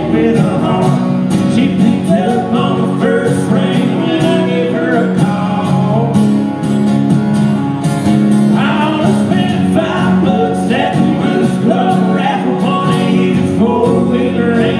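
Live acoustic country music: several acoustic guitars strumming and picking, with a man's voice singing over them.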